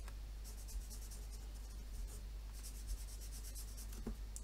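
Blue Sharpie felt-tip marker drawing on paper, the tip scratching in quick back-and-forth strokes as it colours in small shapes, in two spells of strokes about half a second in and again around the three-second mark.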